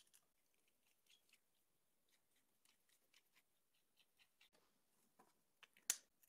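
Faint clicks and ticks of a small screwdriver turning the screws that fasten a flanged linear bearing to an acrylic plate, with one sharper click near the end.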